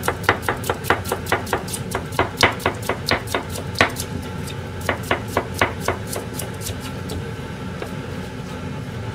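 Kitchen knife slicing a cucumber on a plastic cutting board: a quick run of sharp taps of the blade on the board, about four a second, thinning out and stopping about seven seconds in, over a steady low hum.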